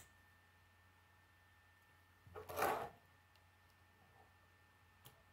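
K'nex plastic pieces clicking as a part is fitted onto a model car: a faint click at the start, a louder burst of plastic snapping and rubbing about two and a half seconds in lasting about half a second, and a small click near the end.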